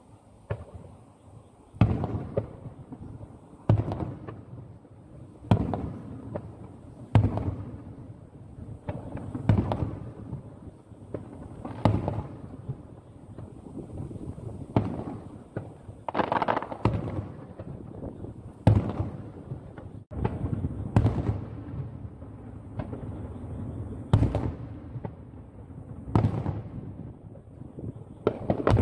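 Aerial firework shells bursting overhead in a steady series, a sharp bang every two seconds or less and now and then two close together. Each bang trails off in a rolling echo.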